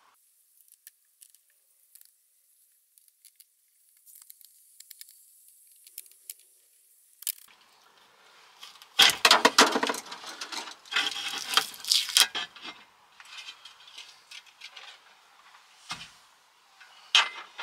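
Hand-tool work on kitchen fittings: faint scattered screwdriver clicks at first, then about three seconds of loud clinking and rattling as loose fittings and small metal parts are handled. A single knock comes near the end, followed by a short clatter.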